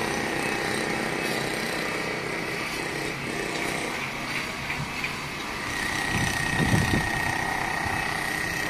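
Steady city traffic noise from the seafront avenue below, a low hum with a thin, steady high tone over it, and a louder rumble about six to seven seconds in, like a heavier vehicle passing.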